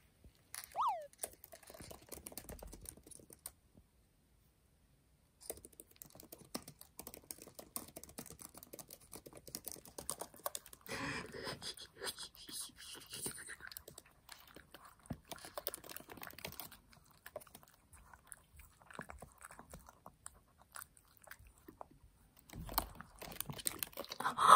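Rapid clicking of laptop keyboard keys under typing, mixed with the wet licking of a Maltese dog's tongue on the typist's hands. A short falling squeak comes about a second in, and the sound drops out briefly about four seconds in.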